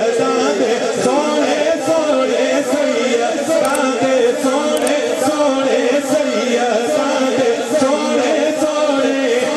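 A man singing a Punjabi naat into a microphone, unaccompanied by instruments, with other voices holding a steady sung drone beneath.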